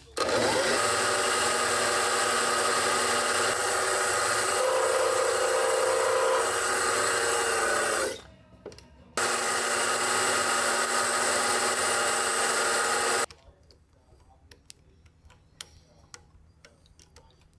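Milling machine running as it drills a small hole in a shaft key held in a machine vise: a loud, steady machine whir with a cutting whine. It stops abruptly about 8 seconds in, starts again about a second later and stops about 13 seconds in, leaving only faint clicks.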